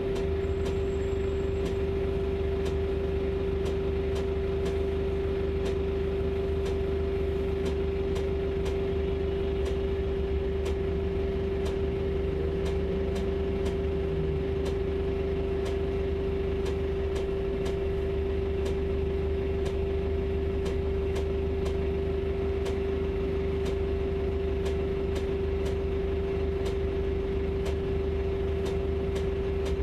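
Cabin sound of a Volvo 7900A Hybrid city bus: a steady low drone with a constant hum above it, and a light tick repeating a little more than once a second.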